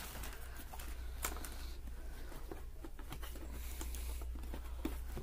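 A cardboard product box being handled and worked open by hand: scattered light scrapes, taps and rustles, with a sharper click about a second in and another near the end.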